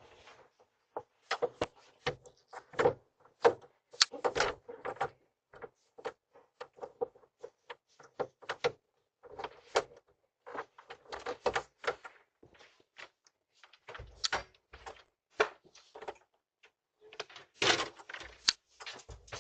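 A door being handled: irregular clicks, knocks and bumps in clusters, like a latch and handle being worked and the door knocking in its frame.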